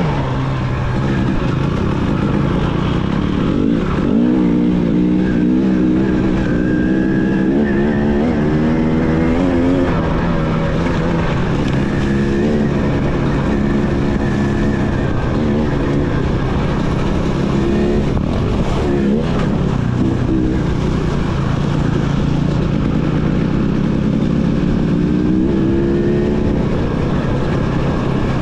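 KTM EXC 300 TPI single-cylinder two-stroke dirt bike engine under way, revving up and down over and over as the rider works the throttle through gears.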